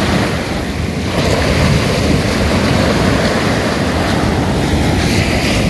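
Ocean surf breaking and washing around the shoreline, with wind buffeting the microphone; the rush swells louder about a second in.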